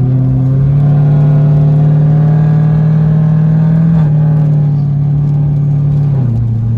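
ZL1 Camaro's supercharged V8 running steadily under light throttle while driving. The engine note steps up in pitch about a second in, holds, and drops back down near the end.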